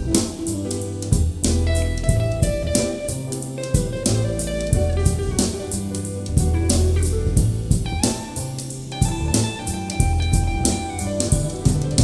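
Music with a drum kit keeping a steady beat, guitar and a prominent bass line.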